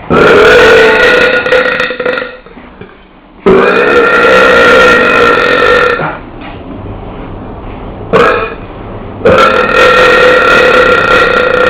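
A person belching loudly: three long, steady burps of two to three seconds each, with a short burp about eight seconds in.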